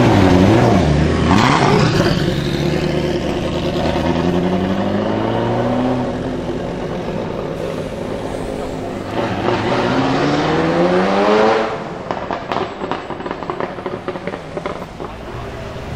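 Ferrari F40's twin-turbo V8 revving and pulling away. The engine note swoops up and down a couple of times at first, then rises through two hard pulls. It cuts off suddenly near the twelve-second mark, and a quieter run of crackles follows.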